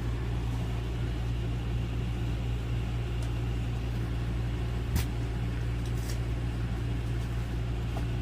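A steady low hum from a running engine or motor, with a single sharp click about five seconds in and a few faint ticks.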